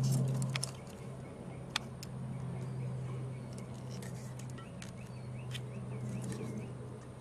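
Light clicks and ticks of a replacement relay's metal pins being handled against a circuit board, a cluster in the first second and a sharper one at about two seconds, over a steady low hum, with a bird chirping repeatedly in the background.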